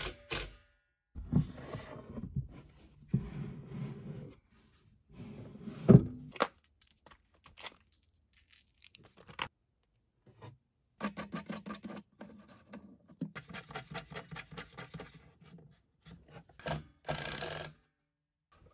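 Handling and tool noises from fastening a metal desk leg frame to a wooden top: a cordless drill driving screws, scrapes and knocks, one sharp loud knock about six seconds in, and a run of rapid, even clicking later on.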